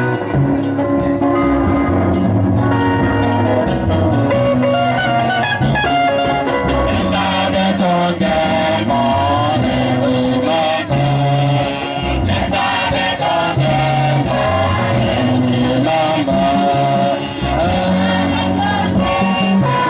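A church choir singing a hymn with band accompaniment, held bass notes under the sung melody.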